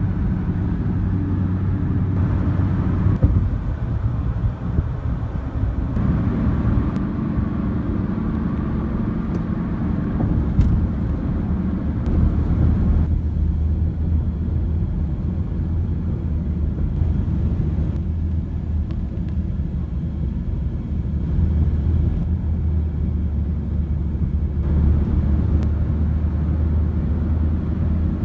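Steady car cabin noise while driving: engine hum and tyre rumble on the road, heard from inside the car. The rumble shifts in tone abruptly several times.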